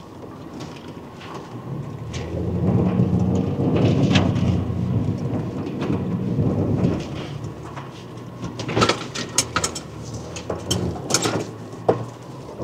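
SUV engine pulling through a muddy off-road track with a low rumble and sloshing mud. It swells for a few seconds, then gives way to a run of sharp knocks and clatters in the second half.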